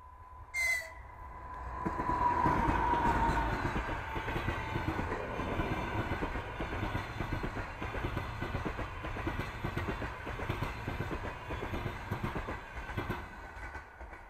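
EP2K electric locomotive and its passenger coaches passing close by at speed. A brief high toot about half a second in, then the locomotive's rumble with a whine falling in pitch as it goes past, followed by the coaches' wheels clattering rhythmically over the rail joints, easing near the end.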